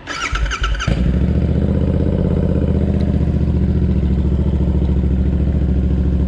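Royal Enfield Interceptor 650's parallel-twin engine being started: a brief high-pitched starter crank for about a second, then the engine catches and settles into a loud, steady idle through its aftermarket JVK exhaust.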